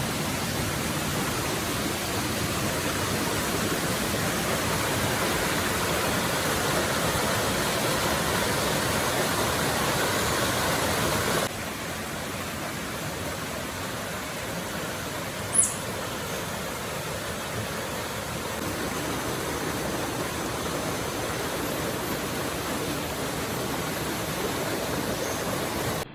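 Steady rushing of flowing water, an even noise that drops a little in level and changes character abruptly about eleven seconds in, with one brief high chirp a few seconds later.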